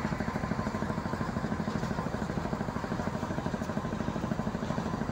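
Ship's engine running steadily with a fast, even throb.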